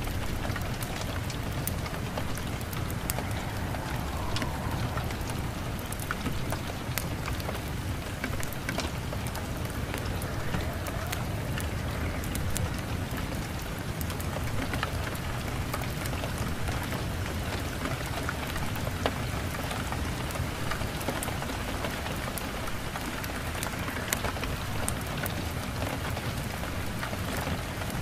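Steady rain with many small scattered drop ticks, an even hiss throughout.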